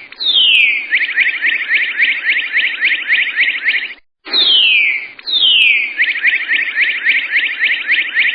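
A bird's song in repeated phrases: each phrase opens with a falling whistle or two and runs into a fast trill of short notes, then breaks off briefly before the next phrase begins.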